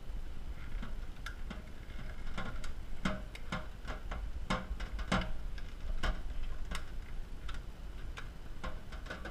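Irregular plastic clicks and taps as a phone in a clear plastic cover is handled and pressed into a clamp-style phone holder, over a steady low hum.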